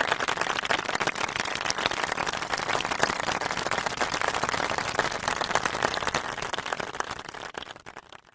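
Applause: a crowd clapping densely and evenly, fading out near the end.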